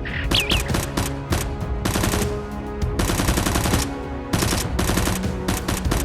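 Rapid automatic-gunfire sound effects in several bursts, each a second or so long, over background music. A short squeaky chirp sounds right at the start.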